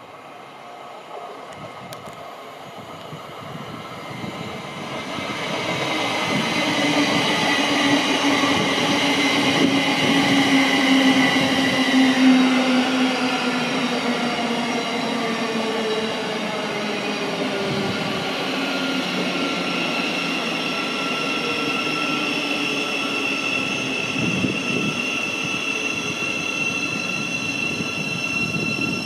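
A Thameslink Desiro City electric multiple unit approaching and running past, growing louder over the first several seconds. Its electric drive whine slides down in pitch over a steady rumble of wheels on rail.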